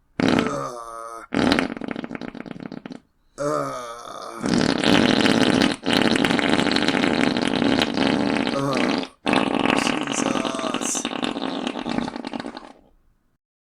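A string of loud farts: a few short blasts with a wavering, flapping pitch, then two long raspy ones, each several seconds long.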